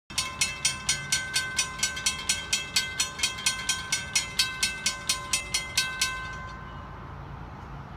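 Railroad grade-crossing warning bell ringing at about four strikes a second, warning of an approaching train as the gate arms lower. It stops about six seconds in, once the gates are down.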